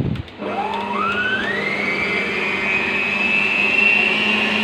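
Electric stand mixer switched on at its speed dial and whisking egg whites: a short knock from the dial, then the motor whine rising in pitch as it spins up over the first couple of seconds and settling into a steady run.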